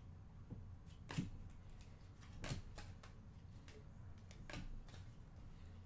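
Faint clicks and soft slaps of trading cards being flipped through by hand, three sharper ones a second or two apart, over a low steady hum.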